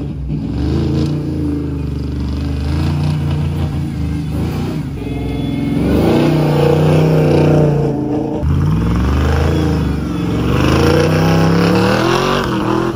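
Early Ford Bronco's big-cam Blueprint small-block V8 revving hard under throttle as the truck drives on dirt. The engine note climbs and drops several times.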